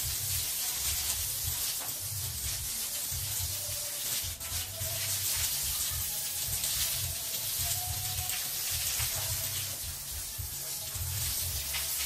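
Water from a garden hose splashing across a floor to wash away construction dust: a steady hiss of running, spraying water.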